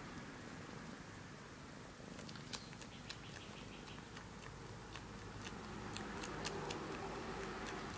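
A cat purring steadily while she suckles on her own paw, with small, irregular clicks from the suckling from about two seconds in. She does this when relaxed and content.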